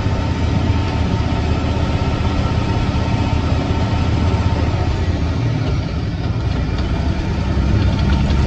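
Semi log truck's diesel engine running steadily while driving slowly, heard from inside the cab, with tyre and road noise from the rough dirt road.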